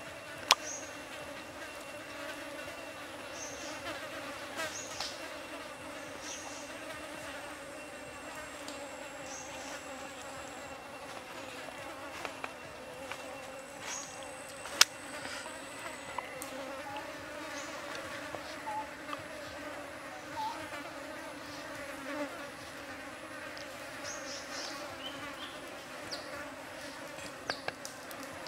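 Insects buzzing steadily in the background, with short high chirps coming and going. A few sharp clicks stand out, the loudest about half a second in and near the middle.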